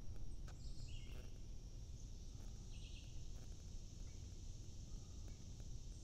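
Summer forest ambience: a steady high drone of insects with a couple of short bird calls, one about a second in and one about three seconds in, over a low rumble.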